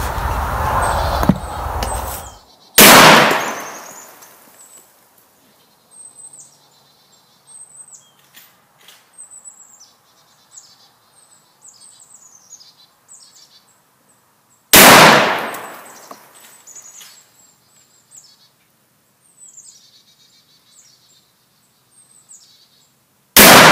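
Three shots from a Marlin 1895SS .45-70 Government lever-action rifle, each a sharp report with a trailing echo: one about three seconds in, one about 15 seconds in and one just before the end. Small birds chirp between the shots, and a loud rumbling noise fills the first two seconds.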